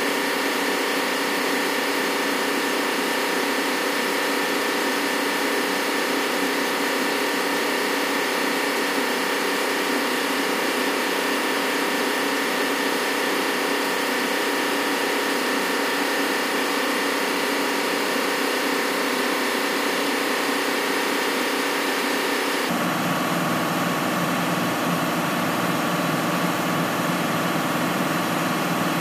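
Steady machinery drone of a ship's engine room, thick with steady tones from running machinery. About 23 seconds in it changes abruptly and a deeper hum comes in.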